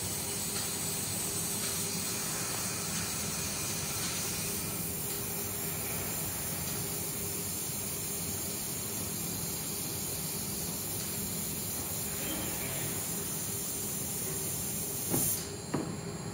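WiseLasers EVO handheld fiber laser welder welding a steel box-section tube: a steady hiss with a faint low hum under it. The hiss stops about a second before the end, with two light knocks.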